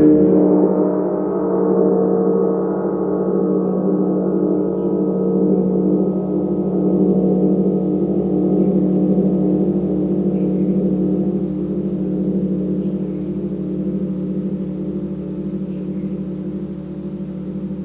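Large gong ringing on in a dense cluster of sustained tones, with a strong low hum underneath and a shimmer of higher overtones that fades away. The sound swells gently up and down as it slowly dies down.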